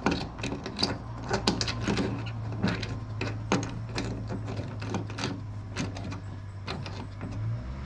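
A 45-degree fuel-line fitting being turned and fitted by hand onto the port of a fuel pump unit on a fuel tank: many small irregular clicks and scrapes of fitting against port. A steady low hum runs underneath and drops away near the end.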